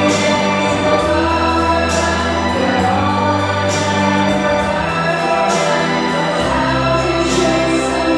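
Choir singing with instrumental accompaniment, long held notes over a slowly changing bass line.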